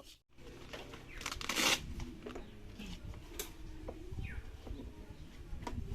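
Rustling, scraping and light clicking of sound equipment and cables being handled, with a louder scraping rustle about a second and a half in.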